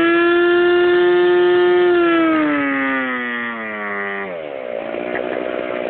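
OS 75 two-stroke glow model-airplane engine turning a 14x6 propeller on a test stand during its break-in, running at high speed. Its pitch holds steady, then sags over a couple of seconds and drops sharply about four seconds in to a lower, rougher running speed.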